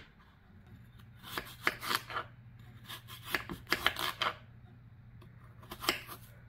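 Kitchen knife slicing through a crisp green apple on a wooden cutting board: crunching cuts and taps of the blade on the board, in three short runs.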